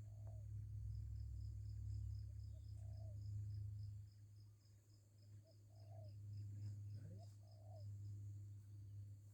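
Faint forest ambience: an insect's high, evenly pulsed call at about four pulses a second, which stops near the end. A bird's short low call repeats every two to three seconds under it.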